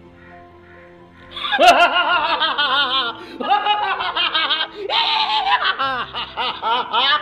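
A man laughing loudly from about a second and a half in, a long run of quick repeated ha-ha pulses, with soft background music beneath.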